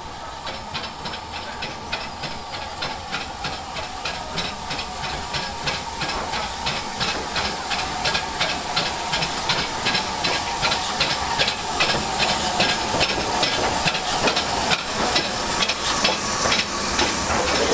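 Steam locomotive working under steam: a steady run of exhaust beats, about three a second, with steam hiss, growing louder as it approaches.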